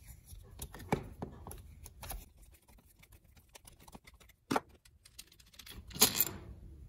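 Flathead screwdriver clicking and scraping in the slotted steel screws of a Rochester Quadrajet carburetor's air horn, with scattered light metal clicks as the screws are backed out and handled. A sharper click about a second in and another after four seconds, and a short scrape near the end.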